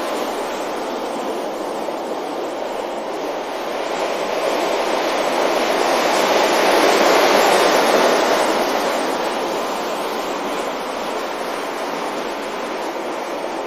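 Sea waves washing onto a beach: a continuous rush of surf that swells to a peak about seven seconds in and then draws back.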